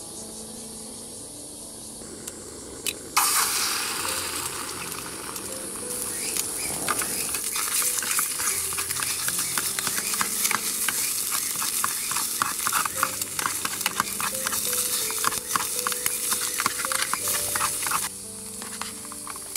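Stir-frying in a hot pan: a sudden loud sizzle about three seconds in as food goes into the pan, then rapid stirring and scraping with the sizzle running on until it drops off near the end.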